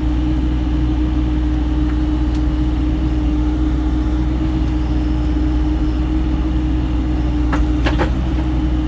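Bobcat E35 R-Series mini excavator's diesel engine running steadily with a constant hum while the arm is worked to hook up a hydraulic breaker hammer. Two short knocks come near the end.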